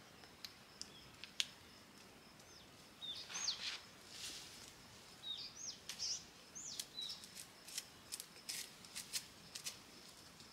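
Pine boughs rustling, with scattered sharp twig snaps as the branches are handled and trimmed. A bird chirps a few short rising calls in the middle of the stretch.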